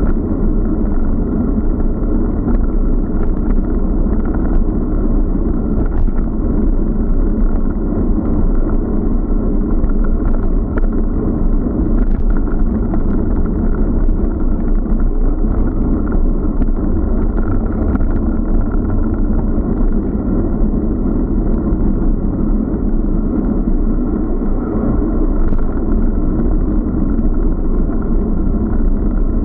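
Steady wind rumble and road noise on an action camera's microphone while riding a bicycle, with a few faint clicks.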